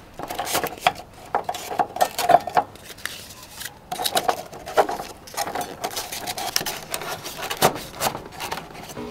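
Hand-handling sounds: a string of irregular clicks and knocks, with a squeaky scraping tone in two stretches in the first part.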